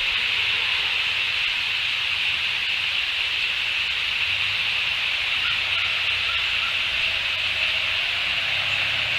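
Outdoor ambience picked up by the nest-cam microphone: a steady high hiss with a faint low rumble underneath.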